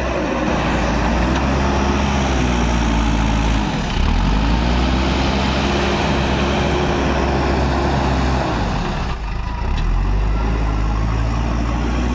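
JCB backhoe loader's diesel engine working under load as the front bucket scoops sand and lifts it. The engine note dips and rises again about four seconds in and again near nine seconds, as the load changes.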